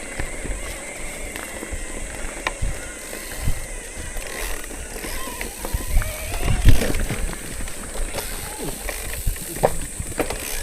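Bicycle ridden over a rough dirt forest road: wind rumble on the microphone with scattered knocks and rattles from the bike over bumps, heaviest about two-thirds of the way in.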